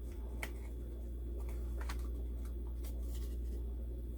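Paper items and packaging being handled: scattered light rustles and clicks over a steady low hum.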